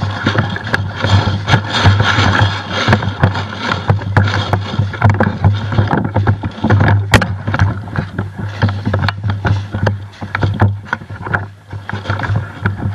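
Rustling noise full of many irregular sharp clicks and knocks, over a steady low hum.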